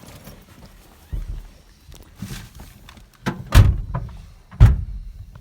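Several thumps as people climb into a vehicle and shut its doors, the two loudest about a second apart near the end.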